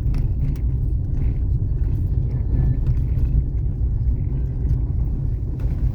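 Steady low rumble of a car's tyres and engine heard from inside the cabin, driving over old, uneven cobblestone paving, with a few faint light rattles.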